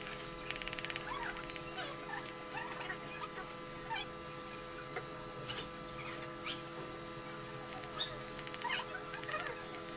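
Graphite pencil scratching in short strokes on paper over a clipboard, with many brief high squeaky chirps scattered through and a steady electrical hum underneath.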